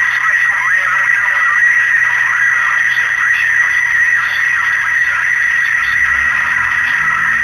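CB radio receiver static: a steady, loud hiss with a constant high whistle running through it, no one transmitting.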